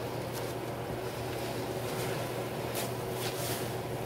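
A wet kitchen towel squeezed and worked by rubber-gloved hands in a sink of soapy water: intermittent wet swishes and squelches, over a steady low hum.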